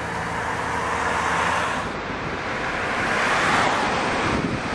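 Road traffic: cars passing on the street, their tyre noise swelling and fading twice.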